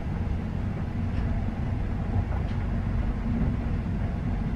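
Steady low rumble of a night train running, heard from inside the carriage.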